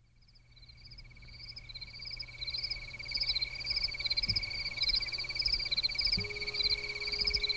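Insects chirping, cricket-like, fading in: one steady high trill with a higher chirp repeating two or three times a second above it.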